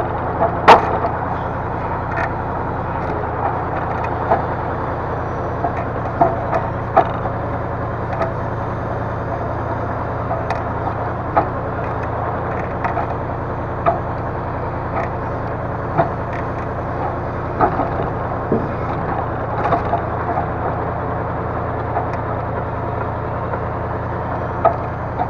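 Steady engine drone of a hydraulic timber loader crane at work, with sharp knocks and clunks every second or two as logs are handled, the loudest about a second in.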